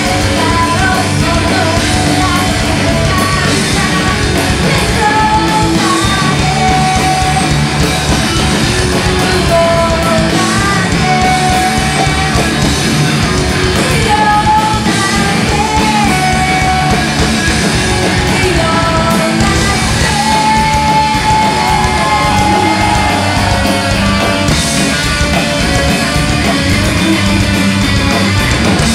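Live alternative rock from a guitar, bass and drums trio: distorted electric guitar, bass guitar and drum kit playing loud and steady, with a woman's sung melody over them.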